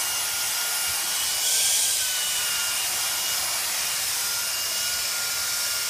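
Cordless handheld vacuum cleaner running steadily with a high whine as its brush head is drawn over a basset hound's coat. The rush of air grows louder and the whine shifts in pitch briefly about a second and a half in.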